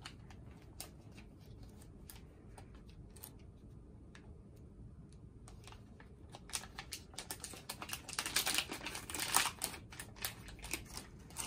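Sterile foil packaging being handled and peeled open by hand: light, scattered crinkles and clicks, growing busier in the second half.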